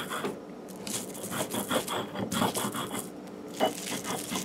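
Stone grinder worked by hand over a flat sil grinding stone, grinding shrimp: repeated rough scraping strokes, about two or three a second, starting about a second in.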